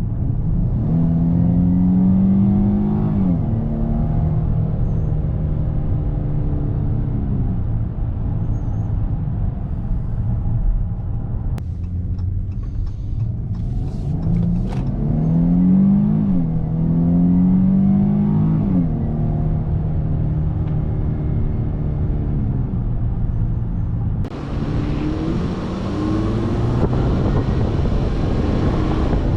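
2018 Dodge Charger's engine accelerating in sport mode on its stock air filter, heard inside the cabin. The engine pitch climbs and then drops at a gear change, twice, over a steady low drone. Near the end a hiss of wind and road noise rises over it.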